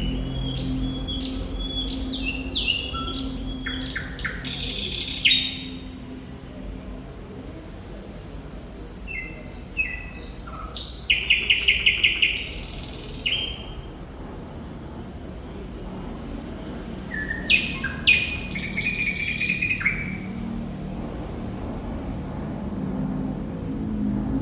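Thrush nightingale singing in vigorous bursts of varied phrases: clear whistles, sharp notes and fast rattling trains of repeated notes, with short pauses between the phrases. A steady low hum runs underneath.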